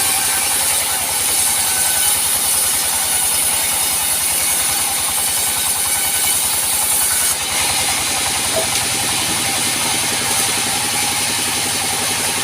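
Engine-driven sawmill running steadily while it saws a teak log, with a high hissing cutting noise over the engine that eases off about seven seconds in.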